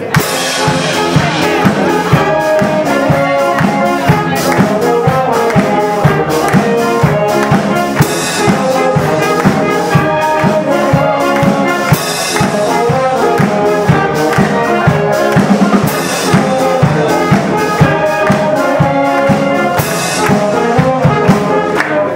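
Live wind band music: brass and woodwinds playing a tune over a steady drum beat, with cymbal crashes about every four seconds.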